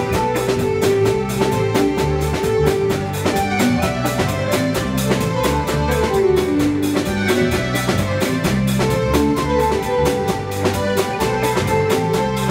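Live band music: a drum kit keeps a steady beat under electric bass and electric guitar.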